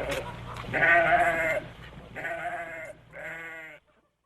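Goat bleating three times, the first call the loudest and longest, each with a wavering pitch.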